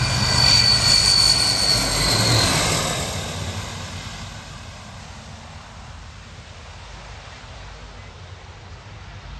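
The Transall C-160's two Rolls-Royce Tyne turboprops pass close on landing: a loud propeller drone with a high, steady turbine whine. It fades over about the fourth second into a quieter, steady engine noise as the aircraft rolls away down the strip.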